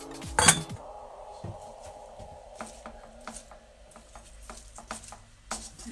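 Wooden spatulas knocking and scraping against a nonstick frying pan while noodles and cabbage are tossed. One loud clack comes about half a second in, followed by scattered lighter taps.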